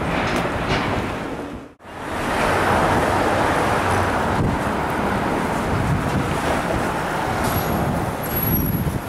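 City street traffic noise with wind buffeting the microphone. The sound drops out briefly just under two seconds in, at a cut, then the traffic noise resumes.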